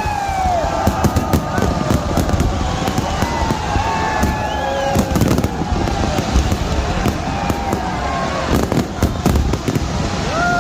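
Fireworks going off in quick succession, a dense run of bangs and crackles, with whistling tones gliding up and down in pitch through it.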